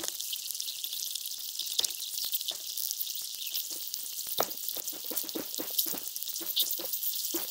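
Dense underwater crackling with many scattered sharper clicks, picked up by a camera submerged on a coral reef. This kind of reef crackle is typical of snapping shrimp.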